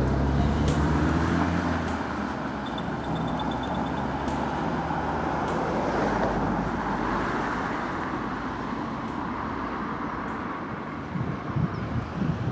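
Road traffic on a residential street: a vehicle's engine rumbles past close by in the first two seconds, then a steady wash of traffic noise continues.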